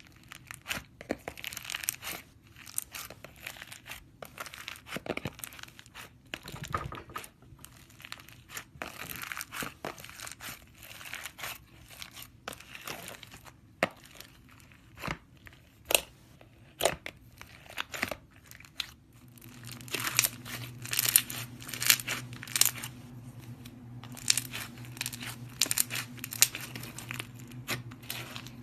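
Crunchy slime being squeezed and pressed by hand, giving a run of sharp crackles and pops with crinkling in between. The crackling gets much denser in the last third, where a faint low hum sets in.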